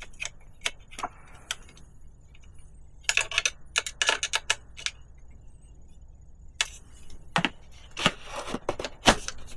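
Series of light clicks and small metallic rattles, clustered about three to five seconds in and again toward the end: a water bottle cage and its bolts being handled and fitted against a bike frame.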